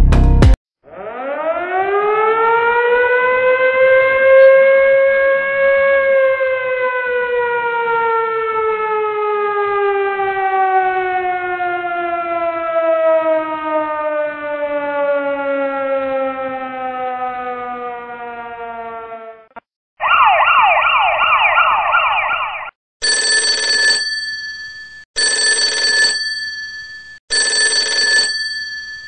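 Air-raid style siren winding up over about five seconds and then slowly winding down, followed by a few seconds of fast warbling alarm and three separate two-second rings of an alarm bell.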